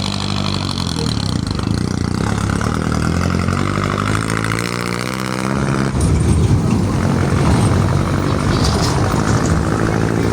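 A motor vehicle's engine running, its pitch rising as it revs between about three and five seconds in, then running louder and rougher from about six seconds in.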